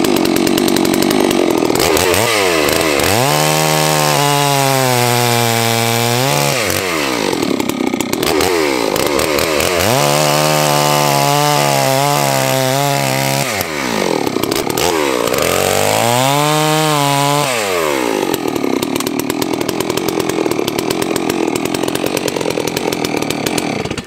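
Holzfforma G660 two-stroke chainsaw running at full throttle while bucking firewood logs. Its pitch drops three times as the engine bogs down under load in the cut, and climbs back up between cuts.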